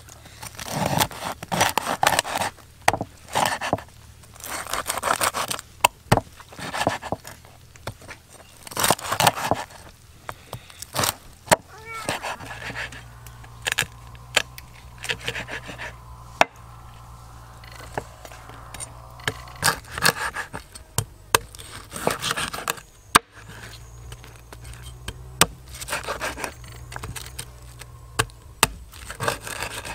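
Knife sawing and chopping through crispy fried pork belly on a wooden chopping board: repeated crackling crunches of the skin under the blade and sharp knocks of the blade on the wood, in irregular clusters.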